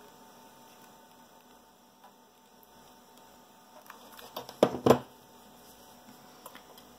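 Hot glue gun being set down on a hard tabletop: a few light clicks, then two sharp knocks close together about two-thirds of the way in, over a faint steady electrical hum.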